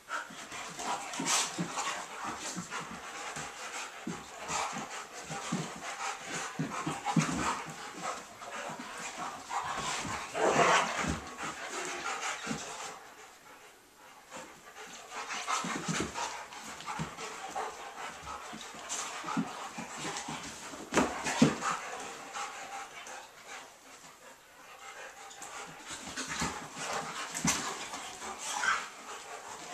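A German Shepherd and an Akita play-fighting: panting, with scuffling of paws and bodies in irregular bouts. The bouts are louder about ten seconds in and again around twenty seconds, with short lulls between.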